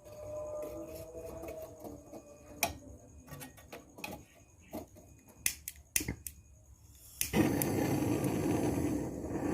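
Scattered light clicks and taps of handling work, then, about seven seconds in, a loud steady rushing hiss starts suddenly.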